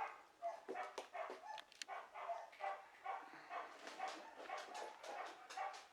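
Dogs barking repeatedly and faintly, a steady run of short barks at about two or three a second.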